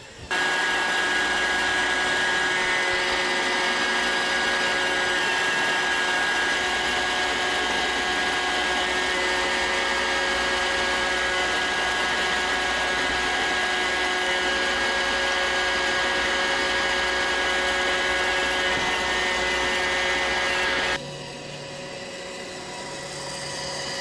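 iRobot Roomba 780 robot vacuum running on carpet: a steady motor and brush whir with several high whining tones held throughout. It drops suddenly to a quieter, more distant level near the end.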